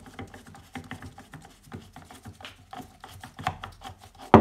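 Side handle being unscrewed by hand from an old CatPower 6185 angle grinder: an irregular run of short scrapes and clicks as the handle is turned on its threads, with one loud sharp knock near the end.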